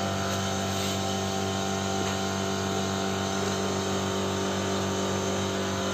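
Steady machine hum: a running motor's low drone with several constant tones above it, unchanging throughout.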